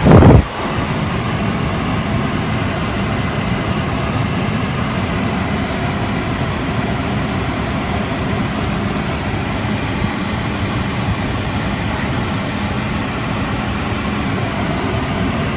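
Steady hum of a car engine idling, heard from inside the cabin, with a brief loud thump right at the start.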